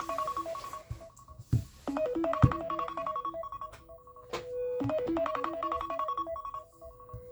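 An iPhone ringtone playing: a fast run of short, bright notes that repeats about every three seconds, with a held note between repeats. Two knocks sound in the first few seconds.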